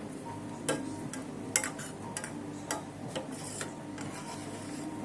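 A spoon knocking and scraping against the cooking pot while stirring dhal: about seven irregular sharp clicks and taps, the loudest about one and a half seconds in, over a steady faint background hum.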